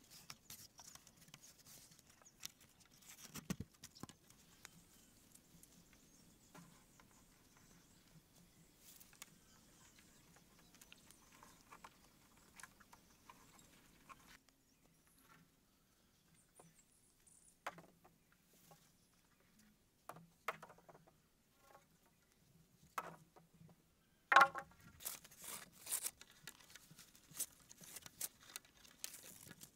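Hand work on a frame of wooden poles: irregular knocks and clicks of poles being handled and rope being pulled tight around them as the joints are lashed, with the sharpest knock about three-quarters of the way through.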